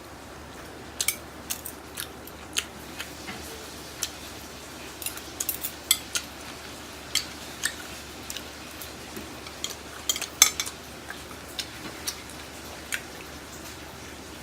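Eating utensils clicking and tapping against a bowl while noodles are eaten: irregular sharp clinks, one to three a second, a few ringing briefly.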